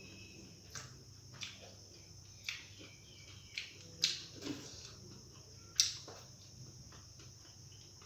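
Close-up eating sounds: chewing and wet mouth smacks, with sharp clicks and smacks every second or so, the loudest about four seconds and six seconds in.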